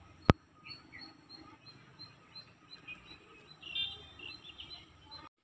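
Birds chirping: a quick run of short, evenly spaced chirps, then a brief cluster of calls near the end. A single sharp click comes just after the start and is the loudest sound.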